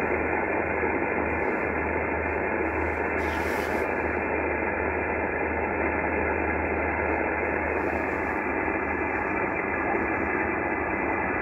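HF transceiver's speaker hissing with steady band noise (static) in receive. The hiss is cut off sharply above about 2.7 kHz by the receiver's single-sideband filter, and a low steady hum runs beneath it.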